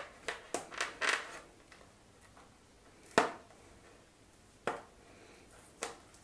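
Cardboard box of Doms watercolour tubes being opened by hand: a few quick scrapes and rustles of card in the first second, then three separate sharp cracks of the flap and inner tray, the first of them, about three seconds in, the loudest.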